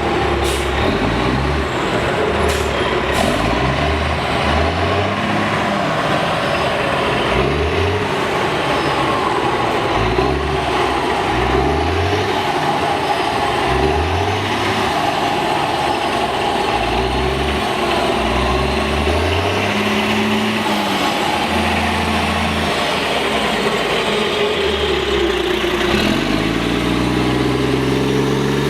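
Caterpillar C13 diesel engine of an MCI D4500CL coach running under load. Its pitch climbs and drops back again and again, and a new climb starts near the end.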